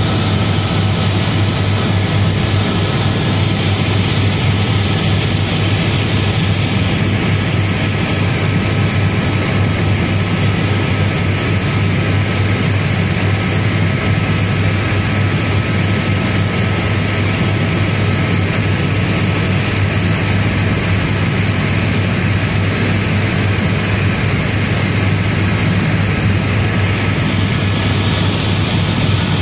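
Tour helicopter in flight, heard from inside the cabin: a loud, steady drone of rotor and engine over a constant low hum.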